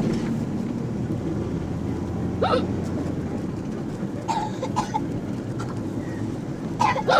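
A person hiccuping, short sudden gulps about two and a half seconds in, a few more around four and a half seconds, and one at the very end, over the steady low rumble of a bus.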